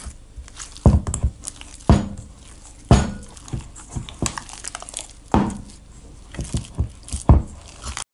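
Hands squeezing and pinching wet, sticky dough in a stainless steel bowl, working in salt and a little water: wet squelches and thumps against the bowl about once a second.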